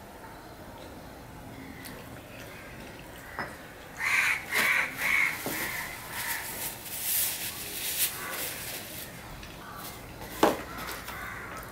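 A crow cawing three times in quick succession, about four seconds in, with a few fainter calls or rustles after it. Near the end comes a single sharp click.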